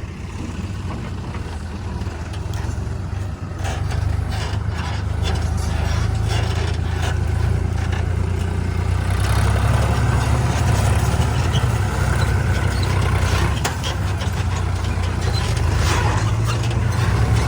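Heavy diesel machinery engine running steadily, getting louder about four seconds in, with scattered knocks and clanks over it.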